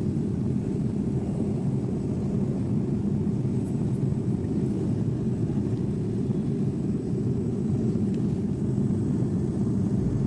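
Steady low drone of a jet airliner in flight, heard inside the passenger cabin.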